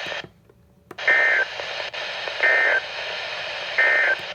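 Three short bursts of EAS/SAME digital data tones, evenly spaced about 1.3 seconds apart, over weather-radio hiss. These are the end-of-message headers that close a NOAA Weather Radio transmission.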